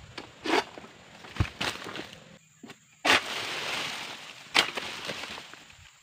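An egrek, a sickle on a long pole, pulled through an oil palm's frond stalks, giving several sharp cracks and snaps. About three seconds in a sudden rush of rustling palm leaves lasts about a second and a half and ends in another sharp crack as the cut frond comes away.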